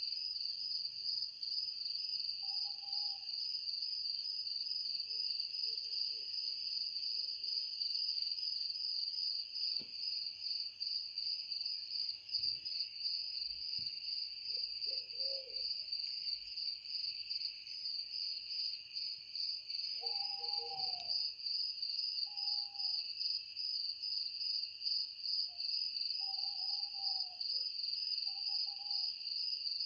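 A steady chorus of insects: a dense, high, rapidly pulsing trill. A few short, low calls stand out over it, one about two seconds in and several more in the last third.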